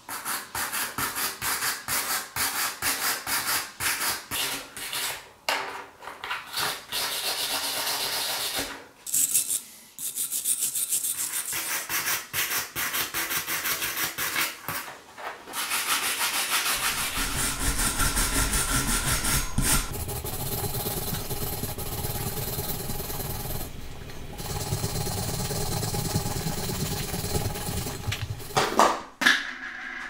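Small brass wire brush scrubbing a pocket knife's pressed-plastic handle scale in rapid back-and-forth strokes, with short pauses.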